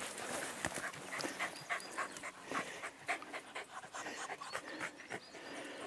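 Hunting dogs panting in quick, uneven breaths.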